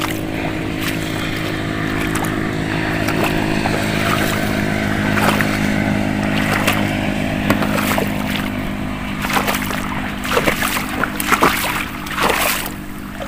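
A vehicle engine running steadily with a low hum, swelling a little midway. In the second half, water sloshes and splashes as someone wades through a shallow, weedy pond.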